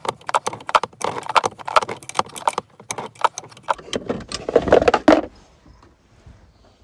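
Rapid metallic clicking and tapping as a 10 mm open-end wrench is worked round a Toyota RAV4's parking-brake cable adjusting nut, tightening a handbrake cable that has gone slack. About four seconds in come a few louder clunks of handling.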